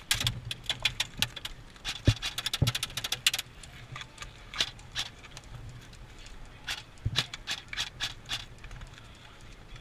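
Airsoft gunfire: irregular sharp cracks, packed into a quick run in the first three and a half seconds, then scattered single shots, with a couple of dull thumps about two seconds in.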